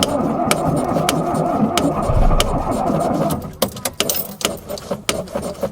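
Fiat 850's four-cylinder engine during a hard start: loud, dense engine noise that cuts in abruptly and lasts about three seconds, then gives way to scattered sharp clicks and pops.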